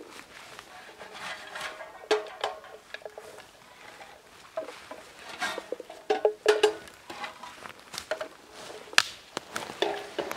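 Handheld berry picker raking through low berry bushes and being knocked against a plastic bucket: irregular rustling and clattering with sharp clacks, the loudest about two, six and nine seconds in.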